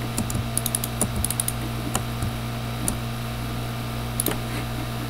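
Irregular clicking of a computer mouse and keyboard, a dozen or so sharp clicks at uneven spacing, over a steady low electrical hum.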